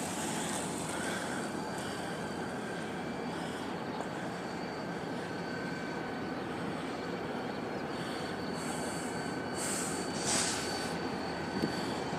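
Freight train rolling past at a distance: a steady rumble of wheels on rail with thin, high, steady squealing tones, and a few short hissing bursts near the end.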